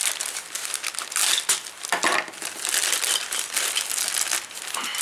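Thin plastic bag crinkling and rustling as it is handled, in irregular bursts of crackle.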